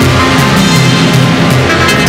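Loud music with a steady driving beat.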